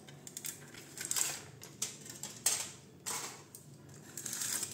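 Aluminium foil crinkling as it is peeled off clay cups, in several short separate crackles.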